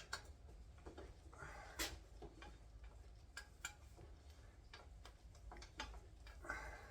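Faint, irregular light clicks and ticks of hand tools on the pivot bolts of a chromoly steel bike frame as the bolts are tightened, with a slightly sharper click about two seconds in.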